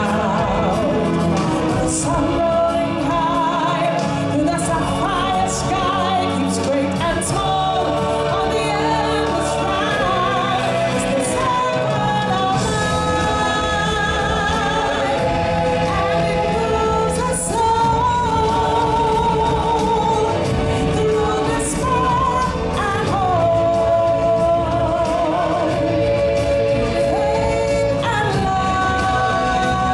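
Live stage-show music: several voices singing together over instrumental backing, with long held notes that waver in vibrato.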